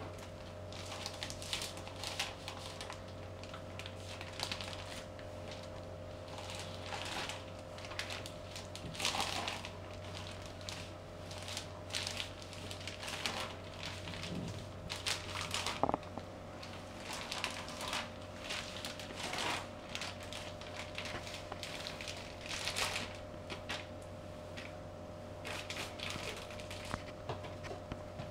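Squishing and crinkling in irregular bursts as feet in rubber flip-flops trample cream cakes on a plastic sheet, with one sharper crack about two-thirds of the way in. A steady faint hum runs underneath.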